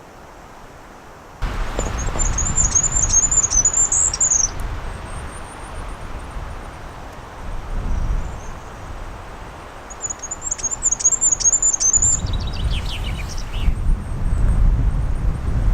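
Goldcrest song: a very high, thin, rapid warbling phrase about two seconds in, repeated around ten seconds, with a short falling run of notes soon after. Low rumble underneath.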